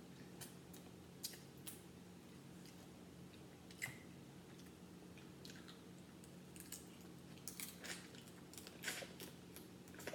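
Close-miked eating of crab legs: wet chewing and sucking on the meat, with scattered sharp clicks and crackles as the shells are picked apart, more of them near the end. A faint steady low hum runs underneath.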